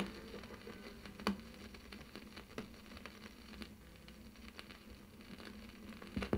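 Vinyl 45 rpm single turning with the stylus in the run-out groove after the song has ended: faint crackle and hiss, with a sharp click repeating about every 1.3 seconds, once per turn of the record.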